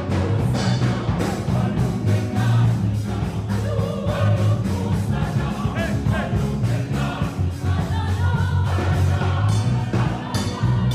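A choir singing in harmony, gospel-style, full low voices under the melody, over a steady rhythmic beat.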